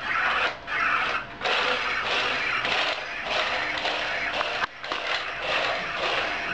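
iRobot Create robot's drive motors and wheels running as it moves across the floor, a steady mechanical whirring that cuts out briefly just under five seconds in.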